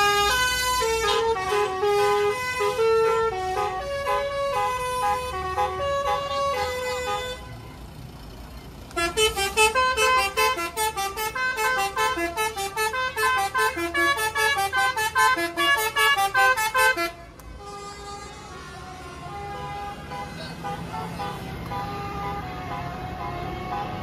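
Bus "basuri" telolet horn playing a melody: a tune of held notes for about seven seconds, then after a short pause a faster run of rapid notes until about seventeen seconds in, with fainter notes over traffic noise near the end.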